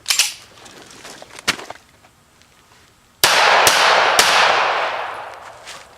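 Three rapid shots from a .45-caliber pistol, about half a second apart, each very loud and sharp, with a ringing tail that dies away over about two seconds. A sharp knock at the start and a fainter click about a second and a half in come before the shots.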